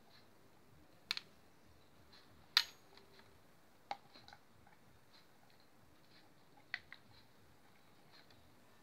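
A handful of sharp plastic clicks and taps from an oil bottle and its nozzle seated in a vacuum pump's oil-fill port while oil is squeezed in, the loudest about two and a half seconds in, over a quiet room.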